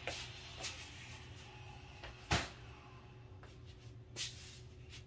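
A few short knocks and bumps, the loudest a little over two seconds in, over a steady low hum.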